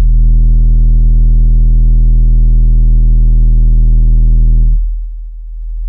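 12-inch car subwoofer in a ported box playing a deep bass test tone at full power (a burp), a steady low note with a stack of overtones above it. It holds for close to five seconds, then fades out near the end, with the SPL meter reading 142.8 dB.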